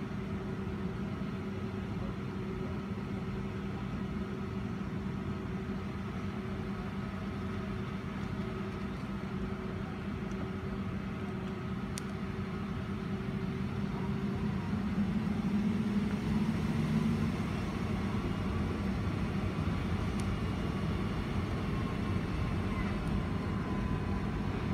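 Inside the cabin of a Boeing 757-200 taxiing, its turbofan engines run at idle as a steady drone with a constant hum. Some seconds past the middle the sound briefly swells and shifts in pitch, then settles.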